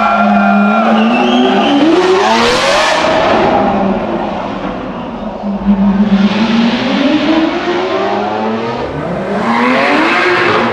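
Supercar engines revving and accelerating hard one after another in a concrete tunnel, with three steep rises in pitch. The first is a Lamborghini Aventador's V12 pulling away, and the last a Porsche 911 GT3 (991) flat-six.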